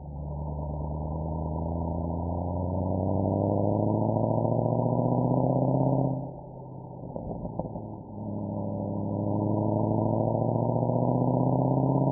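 Mercedes-AMG SL63's V8 engine and exhaust accelerating, the pitch rising steadily for about six seconds. The note then falls away for a couple of seconds with a few sharp crackles, and rises again through the last four seconds.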